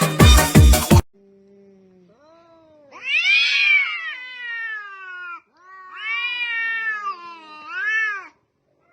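A domestic cat yowling: two long, drawn-out meows and a short third one that rises and falls. A brief bit of music plays at the start.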